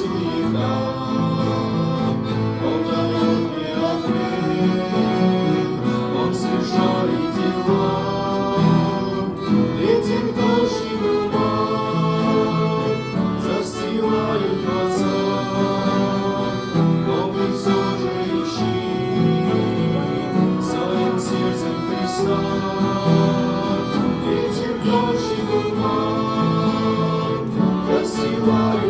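Music from a Christian song: a continuous melodic passage with instrumental accompaniment.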